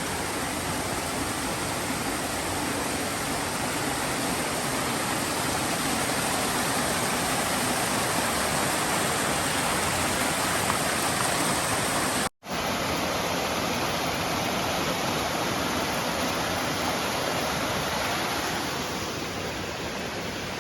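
Waterfall and creek water rushing steadily, a close, even wash of falling water. It drops out for an instant about twelve seconds in, then carries on the same.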